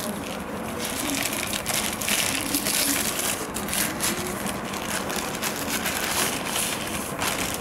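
Black plastic postal mailer bag crinkling and rustling steadily as it is handled and opened by hand and a cardboard box is pulled out of it.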